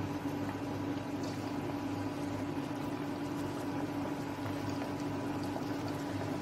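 Mathri discs deep-frying in hot refined oil in a deep pan: a steady bubbling sizzle. A steady low hum runs underneath.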